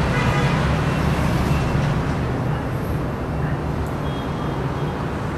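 Steady rumble of city road traffic from the streets below, a little quieter in the second half.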